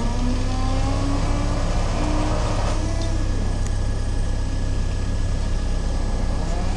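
Mobile crane's diesel engine running under load as it works the hydraulics to swing a suspended transformer. It revs up over the first few seconds, eases off about three seconds in, and revs up again near the end, over a steady low drone.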